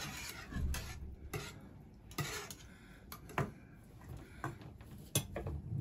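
Wire whisk stirring a thinned yogurt mixture in a pot: a soft swishing at first, then irregular clinks and taps of the whisk against the pot's side.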